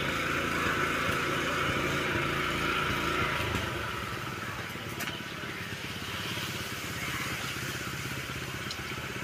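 A small engine running steadily with a low hum and a hiss over it, easing slightly a few seconds in.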